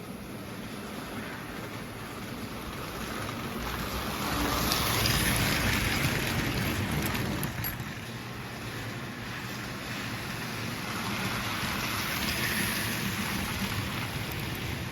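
Gilbert American Flyer S-gauge model train running on its track, a steady rumble of wheels and motor that swells twice as the train passes closer, about five seconds in and again near the end.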